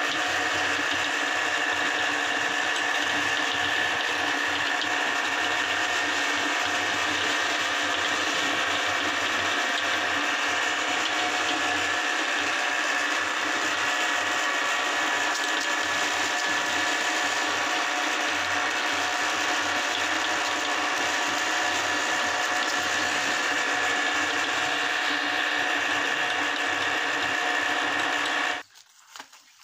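Metal meat grinder running steadily as its auger crushes crunchy rice cake and pushes the crumbs out through the cutting plate: a continuous mechanical grinding and crunching that cuts off sharply near the end.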